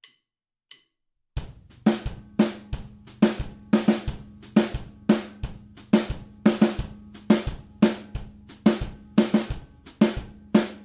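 Drum kit: two light stick clicks finish a count-in, then about a second and a half in the playing starts. A Latin groove rhythm on the snare drum, played with the left hand, runs over a steady foot pattern of bass drum and foot-closed hi-hat alternating on the beats.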